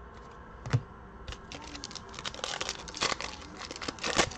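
A foil-wrapped Prizm trading-card pack being torn open and crinkled as the cards are slid out, a dense run of crackling that starts about a second in. It is preceded by a single sharp knock with a low thud, the loudest sound.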